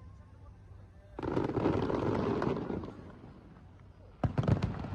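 Fireworks display: a sudden rush of noise a little over a second in lasts about a second and a half, then a rapid cluster of sharp bangs from firework shells bursting comes near the end.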